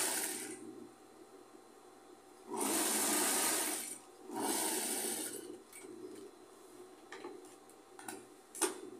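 Industrial straight-stitch sewing machine stitching through layered fabric strips in short runs: one ending just after the start, then two of about a second and a half each around three and five seconds in. A few light clicks follow near the end.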